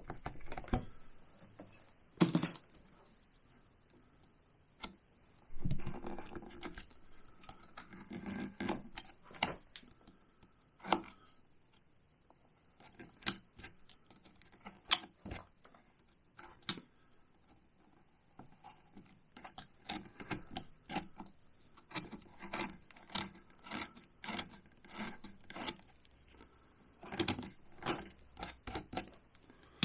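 Small hand carving tool slicing and paring chips from cottonwood bark: irregular crisp clicks and short scrapes, one cut after another, with heavier cuts about two and six seconds in.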